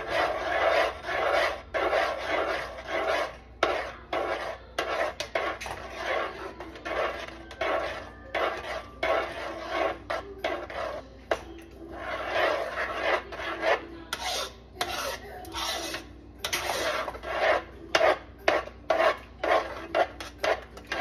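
Spoon scraping and stirring a thick maja blanca mixture in a cooking pot, in repeated irregular strokes with short pauses now and then.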